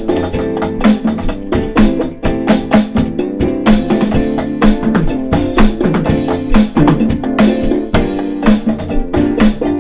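Alesis DM6 electronic drum kit played in a fast improvised groove of kick, snare and tom hits from the module's sounds, with crash-cymbal washes a few seconds in and again near the end.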